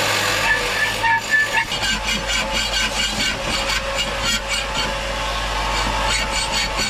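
A power tool running steadily while working the material, with irregular rasping strokes over a constant hum.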